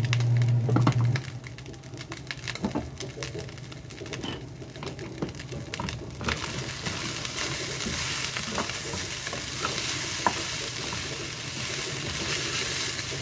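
Fried rice sizzling in a pan on a gas stove while a wooden spatula stirs it, with light scraping clicks; the sizzle swells and gets brighter about six seconds in. A low steady hum stops about a second in.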